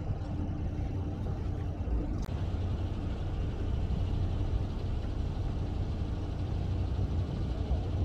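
Fishing boat's engine running steadily, a low hum with a haze of wind and water noise over it.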